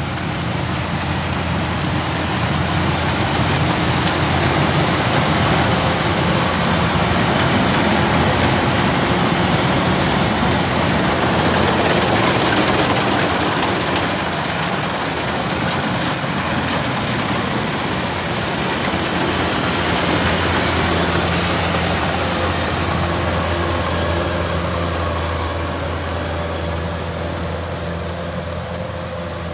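Kubota DC-105X combine harvester working under load as it cuts and threshes standing rice, its diesel engine and machinery running in a steady drone. It is loudest around the middle as the machine passes close, then eases off as it moves away.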